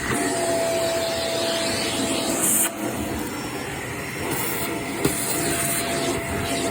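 Vacuum cleaner running steadily with a constant whine as it cleans carpeted stairs, briefly louder about two and a half seconds in.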